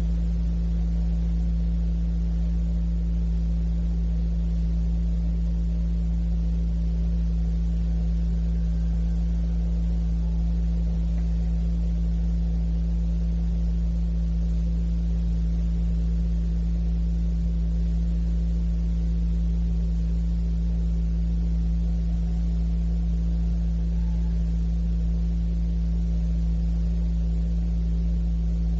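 Steady low electrical hum with a stack of even overtones, over the constant hiss of a cassette tape recording. Nothing starts or stops.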